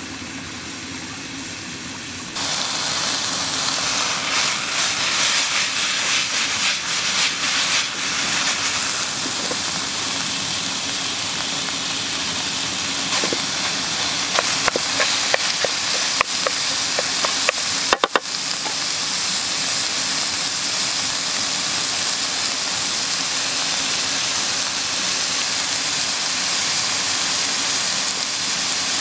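Minced meat and onions sizzling in a hot frying pan over a wood fire, the hiss growing louder about two seconds in. A run of sharp clicks, a wooden spatula stirring and scraping the pan, comes about halfway through.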